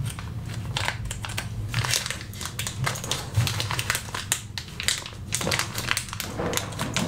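Clear plastic zip-lock bag crinkling and rustling irregularly as fingers open it and work a wristwatch out of it.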